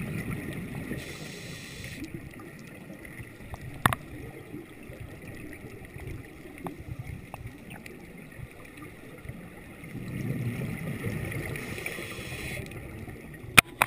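Underwater ambience on a scuba dive: a low gurgling rumble of exhaled bubbles, swelling at the start and again about ten seconds in, with a sharp click about four seconds in and a couple more near the end.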